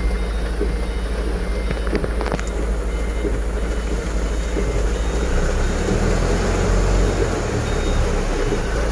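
Diesel truck engine running, heard from inside the cab as a steady low drone that grows stronger and lower about five seconds in, with a few faint clicks near two seconds.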